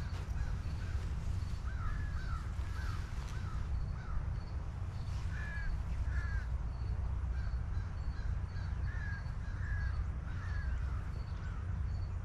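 Outdoor ambience: birds calling in short, repeated calls roughly once a second over a steady low rumble of wind on the microphone, with a faint, regular high chirping about twice a second.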